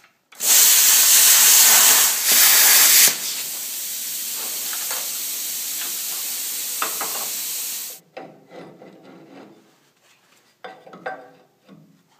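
Plasma cutter cutting through steel plate with a loud, steady hiss for about three seconds. The quieter steady rush of air that follows is the cutter's post-flow cooling air, which stops abruptly. A few light metal knocks follow as the cut plate is handled.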